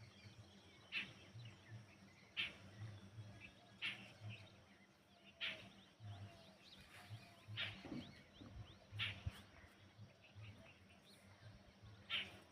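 Faint birds calling: one bird repeats a short, sharp call about every second and a half, with smaller chirps from other birds between.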